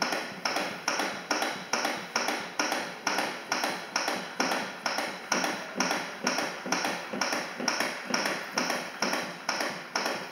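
CPR training manikins clicking in a steady rhythm under chest compressions, about two clicks a second, the pace of roughly 100 compressions a minute.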